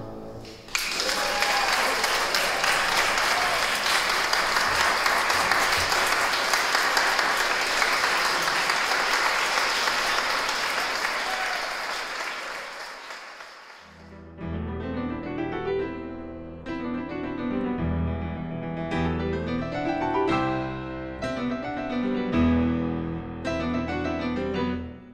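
Audience applauding, strongly and steadily, for about thirteen seconds, then fading away. Piano music comes in suddenly about fourteen seconds in.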